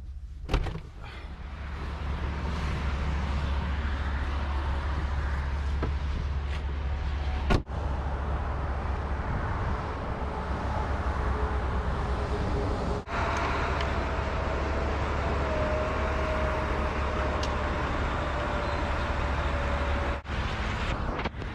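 Steady road and engine noise inside a moving vehicle, a low drone under a broad rush, broken briefly three or four times.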